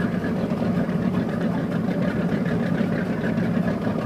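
Tour boat's engine running with a steady, even drone, heard from on board.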